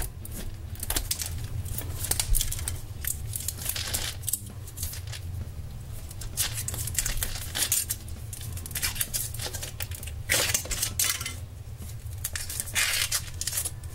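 Scissors snipping into the foil wrapper of a large chocolate egg, then the foil crinkling and rustling in quick, irregular crackles as it is peeled off the chocolate by hand.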